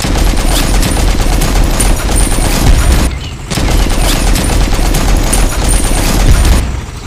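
Rapid automatic machine-gun fire, in two long bursts with a short break about three seconds in.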